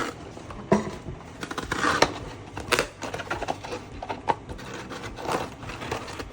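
Blade cutting through the paper cone of an 18-inch subwoofer around the voice coil, with irregular scraping, crackling and sharp clicks as the cone is worked loose.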